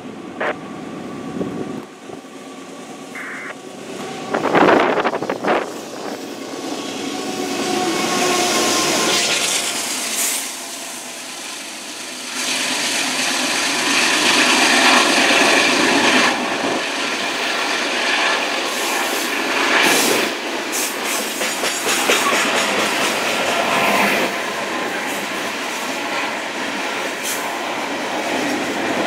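Union Pacific loaded coal train passing close by: the diesel locomotives go by first, loudest about five seconds in, then loaded coal cars roll past with a steady rumble and clickety-clack of wheels on the rails.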